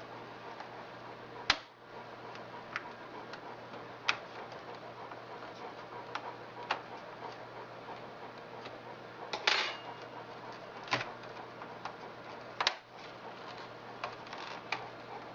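Scattered sharp clicks and small knocks, with a brief scrape about nine and a half seconds in, as the back cover of a Sony VAIO all-in-one computer is pried away from its edge by the ports with a small tool and fingers. A faint steady hum runs underneath.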